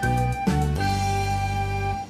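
Instrumental background music: a couple of struck notes over a steady bass, then a held chord that cuts off abruptly at the end.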